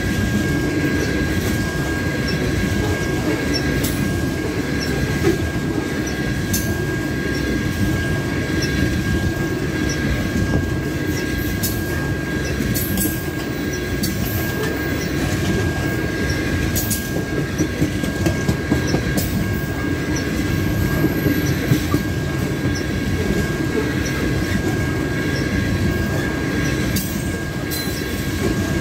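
Loaded aluminum coal cars of a long freight train rolling past close by: a steady low rumble of wheels on rail, with scattered clicks and clanks over the rail joints. A thin, steady high-pitched squeal from the wheels runs under it.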